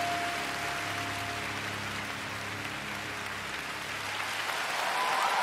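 Large arena crowd applauding, while the last held notes of the skating music die away in the first few seconds. The applause grows louder near the end.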